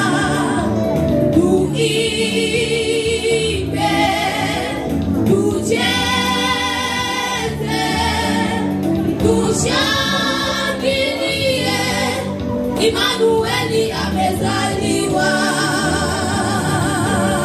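Church choir of young women singing a gospel song into microphones, with vibrato in the held notes, over amplified instrumental backing.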